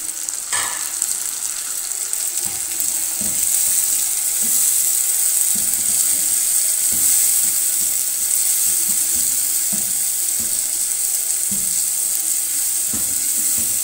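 Chopped tomatoes sizzling in hot oil with fried onions in a pot: a steady, watery hiss that grows louder about three seconds in. A plastic slotted spatula stirring the pan adds irregular soft scrapes and knocks.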